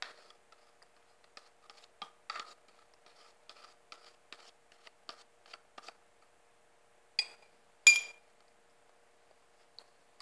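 Metal spoon scraping and tapping inside a small cup, a quick series of light scrapes and clicks. There are two louder, ringing clinks about seven and eight seconds in.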